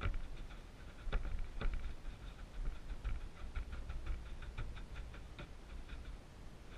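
A hand pushing and spreading dry wood-shaving bedding: an uneven run of small crackles and rustles, with a couple of louder crunches about a second in.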